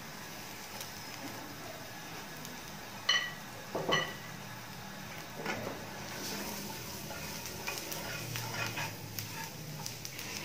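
Two short metallic clinks about three and four seconds in, then a spoon stirring and scraping garlic and dried spices in hot oil in a nonstick pan, with a faint sizzle.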